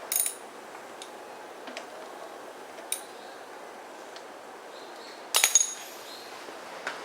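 Small metal parts clinking and tapping as the shift-lever assembly of a two-stroke 2 hp outboard motor is reassembled: a few light scattered clicks, with a louder cluster of clinks about five and a half seconds in.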